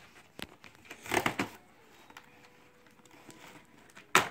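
Toy packaging of cardboard and plastic being handled as a toy is worked loose from its box: a click, a brief crackling rustle about a second in, then a sharp crack near the end.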